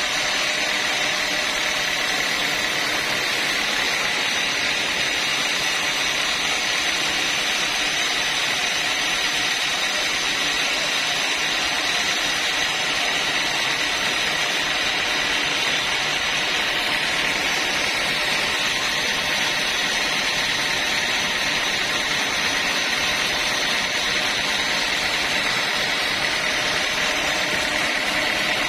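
Sawmill saw running steadily as it saws timber lengthwise into long planks. It gives an even, unbroken hiss with a steady high whine over it.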